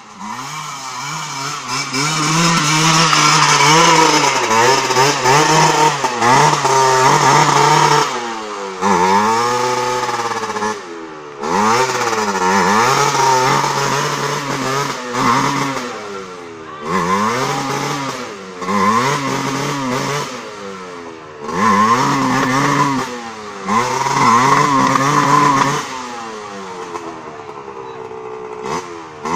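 Dirt trail motorcycle engine revved hard in repeated bursts, its pitch swinging up and down again and again, as the bike struggles stuck on a slope with the rear wheel spinning and throwing smoke. Near the end the engine drops back to a lower, steadier run.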